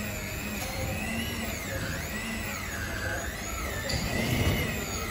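Electric stand mixer running, its beaters working cream cheese in a stainless steel bowl; the motor whine rises and falls unevenly in pitch.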